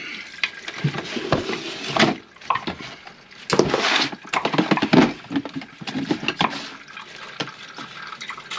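Standing water backed up in a grease-clogged kitchen sink drain sloshing and splashing as it is drained and emptied, in irregular spurts with handling knocks, loudest about halfway through.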